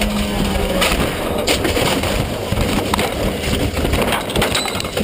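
A rally car crashing off the road. Its engine note stops about a second in, then there is rough scraping and rumbling with several sharp knocks and cracks.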